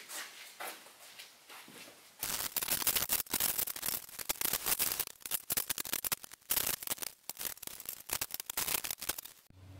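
Dense scraping, crackling and rattling of sheet steel as the cut-off rear section of an old Ford F100 truck bed is handled and worked into place. The noise starts suddenly about two seconds in, after a few faint clicks, and stops just before the end.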